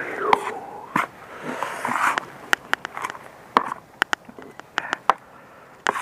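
Digging in garden soil by hand or with a small tool: short scrapes and crunches of earth, with many sharp little clicks scattered throughout.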